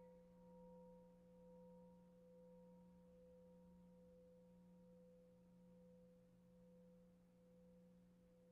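Faint ringing of a struck singing bowl dying away slowly, its tone gently swelling and ebbing; the higher overtone fades out about five seconds in while the lower tones linger. It is rung to open a time of silent reflection.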